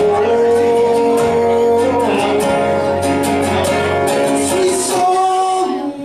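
Live acoustic music: a man singing over strummed acoustic guitar. He holds a long note at the start and lets it bend down after about two seconds.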